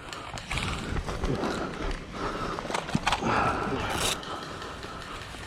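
Rustling and scraping handling noise from an airsoft player's gear and movement, uneven, with a single sharp click about three seconds in.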